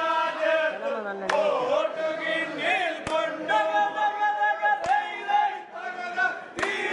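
A group of voices chanting or singing together in unison, with a sharp knock about every two seconds.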